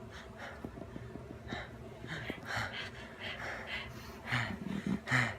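A person breathing in short, breathy gasps, a series of quick breaths with a louder one near the end.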